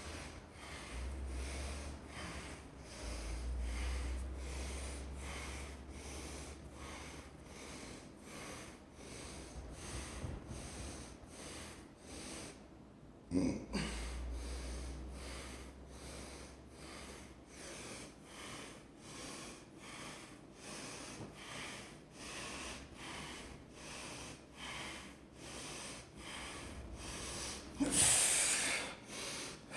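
A person breathing hard and fast after heavy exertion, the breaths coming at a steady pace of about one and a half a second as he recovers between sets. A thud comes about halfway through, and a louder noise near the end.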